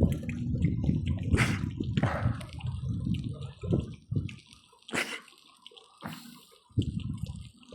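Water gushing out of a hose onto the roof, steady for about the first three seconds and then in irregular spurts. It keeps flowing even though the shut-off valve is closed.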